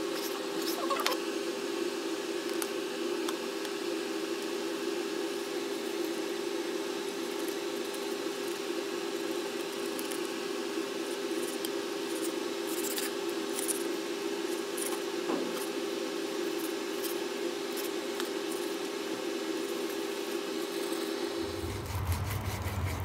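Kitchen knife slicing and scraping fish fillets on a wooden cutting board, with a few light taps of the blade, over a steady hum. Near the end the hum gives way to a deeper one.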